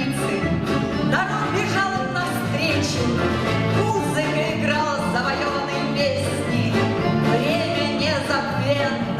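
Orchestra of Russian folk instruments playing a full, steady passage, with many melodic lines over regularly repeating bass notes.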